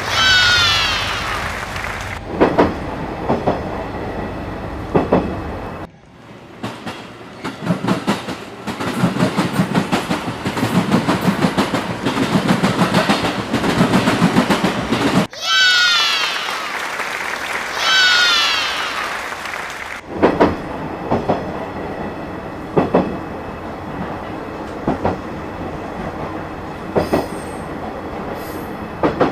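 A train running on rails, its wheels knocking and clacking over rail joints, with a rhythmic stretch in the middle. There are a few short, high-pitched sounds that fall in pitch near the start and about halfway through.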